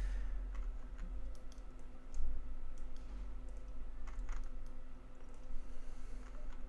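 Scattered faint clicks and taps of computer input while drawing digitally, over a low steady hum.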